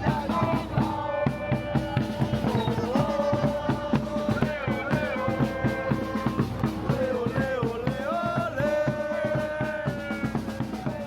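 Music with a steady drum-kit beat under a held melody line that bends up and down.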